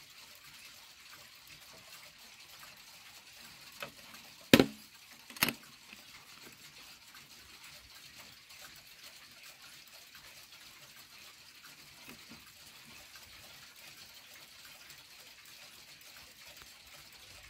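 Small pendulum mantel clock (Pfeilkreuz timepiece, no chimes) running, its ticking faint under a steady hiss. Around four to five and a half seconds in come three sharp knocks, the middle one the loudest, as the clock's wooden case is handled.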